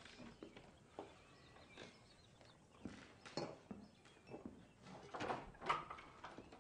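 Faint, scattered clopping knocks, sparse at first and busier from about three seconds in, loudest about five to six seconds in.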